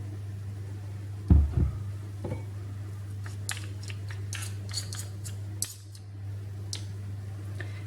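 A metal dessert spoon clinking and scraping against a jar and bowl as a spoonful of honey is measured out, with a dull thump about a second in, over a steady low electrical hum.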